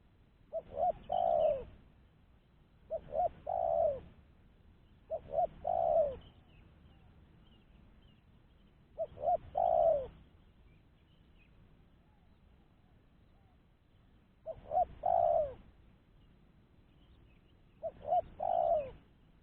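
Spotted dove cooing: six calls a few seconds apart, each two short notes followed by a longer falling coo.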